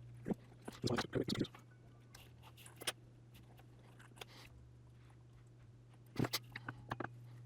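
Hands handling and fitting plastic remote-controller shell parts and rubber button membranes: scattered clicks and light rattles, bunched about a second in and again near the six-second mark. A steady low hum runs underneath.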